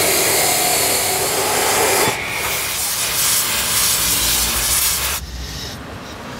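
Abrasive chop saw cutting through a steel tube with a steady grinding whine. About two seconds in it gives way to the steady hiss of a cutting torch slicing a steel bar. About five seconds in that changes to the quieter running of a lathe turning steel.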